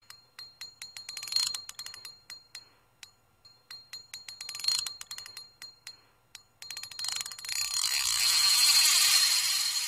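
Fishing reel drag clicking in two runs that speed up into rapid ratcheting. Then, about seven seconds in, it runs into a continuous high-pitched screaming whir, as if line is being stripped off the spool.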